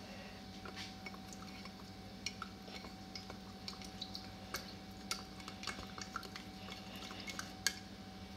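Metal spoon stirring coffee in a ceramic mug, clinking repeatedly against the cup's side, with one sharper clink near the end. A steady low hum runs underneath.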